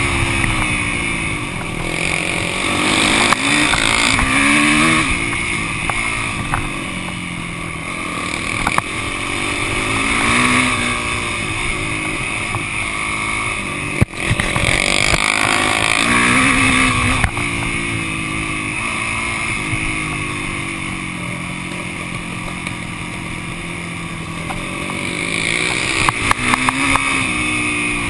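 Yamaha YZ450F four-stroke single-cylinder dirt bike engine running under way, its pitch rising and falling several times as the rider accelerates and shifts gears. A single sharp knock about halfway through.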